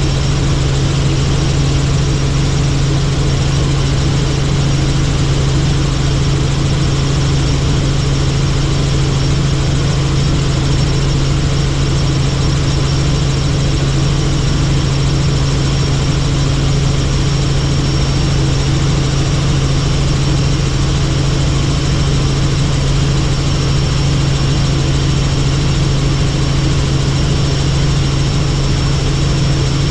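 Helicopter in flight, its engine and rotor running at a constant pitch: a steady low hum with a faint high whine above it.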